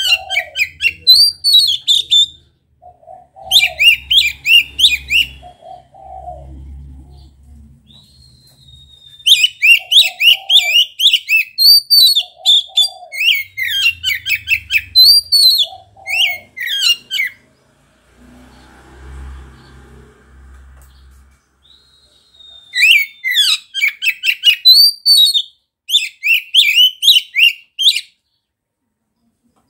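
Oriental magpie-robin (kacer) singing loudly in five bouts of rapid, varied high whistles and chattering notes, with pauses between, falling silent shortly before the end.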